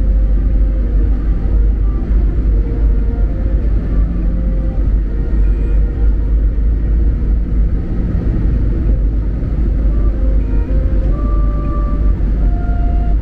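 Airliner cabin noise as heard from a passenger seat: a steady, loud low rumble of the jet engines and rushing air, with no sudden events.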